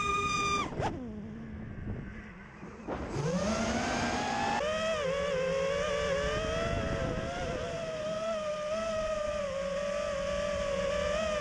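FPV quadcopter's electric motors whining. A high steady whine drops away sharply just under a second in and stays low and quieter for about two seconds. It then rises again about three seconds in and settles into a steady, slightly wavering whine, the motors' pitch following the throttle.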